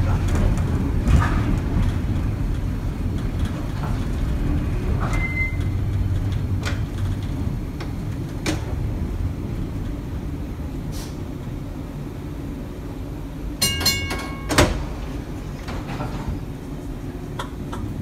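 Air-electric PCC streetcar rolling along the track, heard from the cab: a steady low rumble of wheels and running gear with scattered clicks. About three-quarters of the way through there is a brief high ringing, then a sharp knock.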